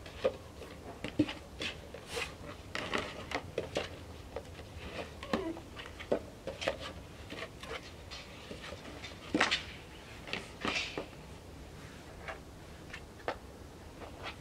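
Red plastic dog bowls clacking and knocking against each other as they are pulled apart from a stack and set down one by one: a string of short, light knocks, with a couple of longer scrapes about halfway through.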